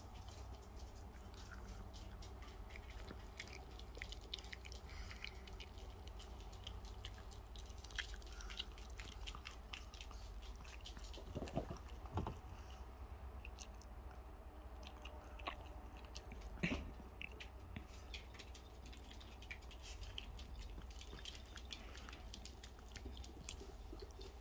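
A small dog chewing and gnawing raw chicken, a run of faint wet clicks and bites with a few louder crunches near the middle.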